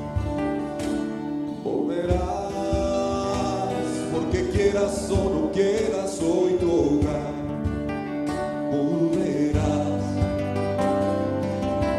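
A man singing a slow ballad, accompanying himself on a plucked electro-acoustic guitar.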